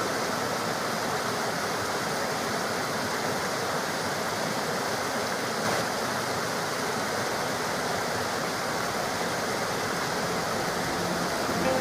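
Flowing water of a stream or waterfall, a steady rushing with no music.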